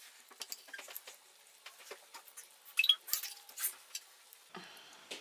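Metal knife and fork clicking and scraping against a glass baking dish while cutting baked chicken, with the loudest clinks about three seconds in.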